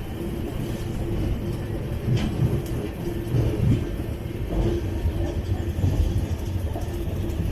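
Passenger train running on the rails, heard aboard: a steady, dense rumble of the coach's wheels and running gear, with a faint steady hum.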